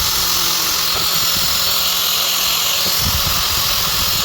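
A handheld woodworking power tool running steadily, giving a loud, even, hissing whir.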